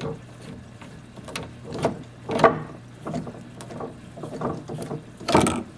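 Hand working a white PVC union fitting on an aquaponics pipe: a string of irregular plastic clicks and scrapes, the sharpest about two and a half seconds in and near the end, over a steady low hum.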